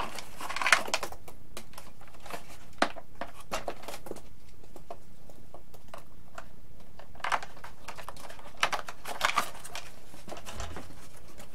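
Hands handling a foam RC airplane fuselage and its wiring: scattered clicks, taps and rustling of foam and plastic, a cluster just after the start and several more in the second half.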